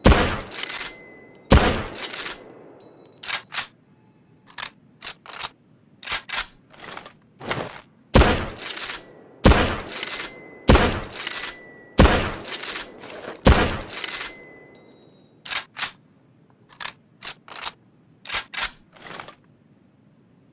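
Mosin-Nagant M91/30 bolt-action rifle (7.62×54R) firing seven shots, each a sharp crack with a short echoing tail. Two come at the start, then five about 1.3 s apart in the middle. Between them and near the end are lighter metallic clicks, like the bolt being worked.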